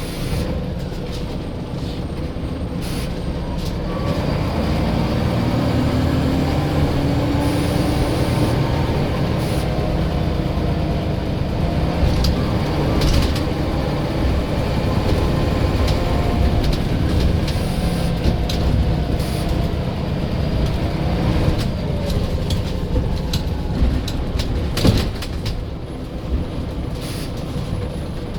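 Scania L94 bus engine running under way, its note rising and falling as it pulls away and changes speed, with rattles and knocks from the bodywork. A sharp knock comes about 25 seconds in, and a faint high whistle is heard near the start and near the end.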